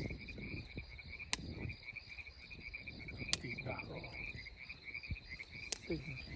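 Night chorus of frogs and insects calling, a steady rapid pulsing trill, with three sharp clicks about two seconds apart and low rustling from handling.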